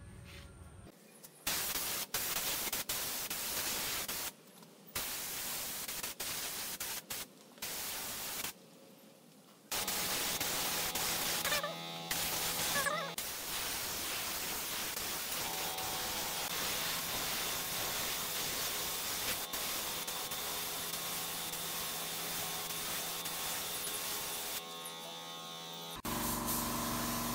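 Compressed-air spray gun hissing as it sprays finish onto wooden slats. It goes in short bursts with pauses for about the first ten seconds, then runs as one long steady spray of about fifteen seconds. Guitar music begins near the end.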